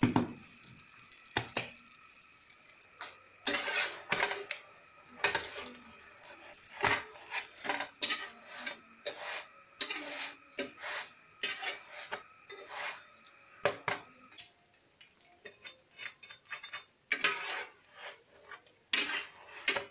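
Slotted spatula scraping and knocking against a non-stick frying pan as a stuffed flatbread is pressed and turned in it, over a faint sizzle of the bread frying. A denser run of scrapes near the end as the bread is flipped.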